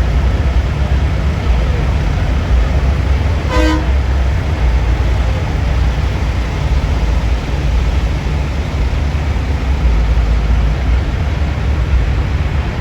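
A steady low rumble with one short vehicle-horn toot about three and a half seconds in.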